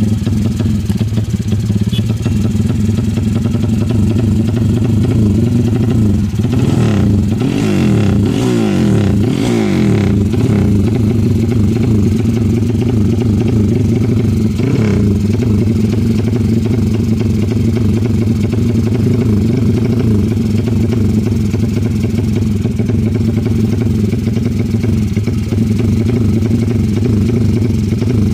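Tuned motorcycle engine running steadily, with the pitch sweeping up and down between about six and ten seconds in and a short blip of the throttle near fifteen seconds.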